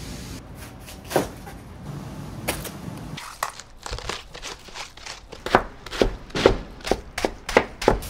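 Kitchen knives chopping cabbage on a cutting board: sharp knocks, a few scattered at first, then a quick run of loud chops about three or four a second over the last few seconds.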